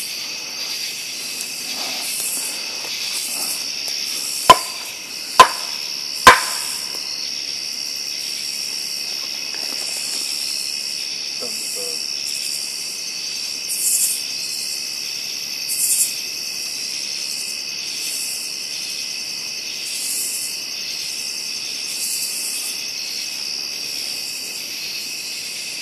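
Night insect chorus of crickets and other insects: a steady high-pitched trill with pulsing calls repeating every second or two on top. Three sharp clicks or knocks, about a second apart, stand out loudest about five seconds in.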